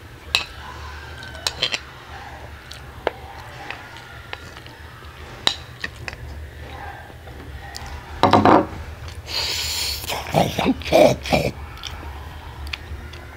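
Fork clicking and scraping against a ceramic bowl while noodles are eaten, with a few sharp clinks early on. Louder mouth sounds of eating come in a cluster about eight to eleven seconds in.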